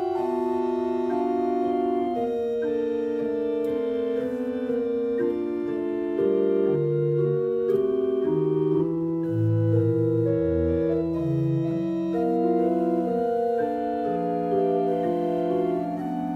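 Background music of held, sustained chords over a slowly stepping bass line.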